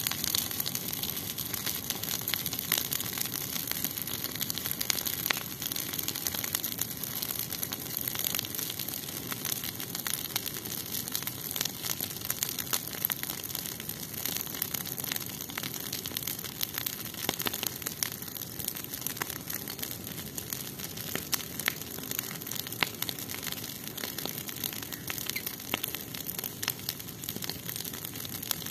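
Brush pile of dry branches and twigs burning, crackling and popping in many sharp, irregular snaps over a steady hiss.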